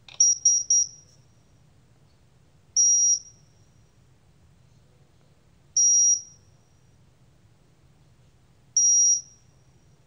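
Satel CA6 alarm keypad beeping: a quick triple beep as the code is entered with the # key, then a single half-second beep about every three seconds, the exit-delay countdown as the system arms.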